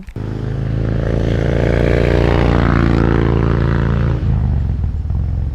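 A motor vehicle passing on the road: a steady engine hum with tyre hiss that swells, peaks mid-way and fades, the engine tone dropping away about four seconds in.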